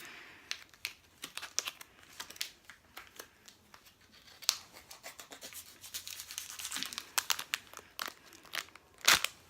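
Tough plastic snack packaging being torn open and crinkled by hand, a steady run of irregular crackles with a louder crackle near the end.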